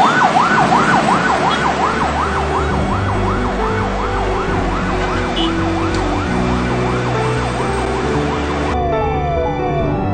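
Ambulance siren in a fast yelp, its pitch sweeping up and down about three times a second. Near the end it switches to a different pattern of short falling sweeps, about two a second.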